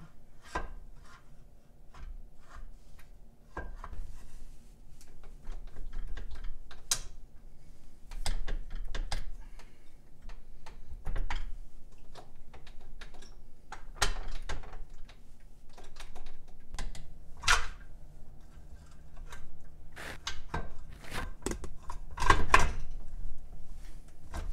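Irregular knocks, clicks and clunks of a Mercury 7.5 hp outboard's lower unit being handled and pushed up against the motor's midsection while it is worked into line, with the loudest clunks about two-thirds in and near the end.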